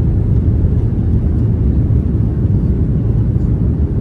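Airliner cabin noise during the takeoff roll: a steady, loud, low rumble from the jet engines and the wheels running along the runway.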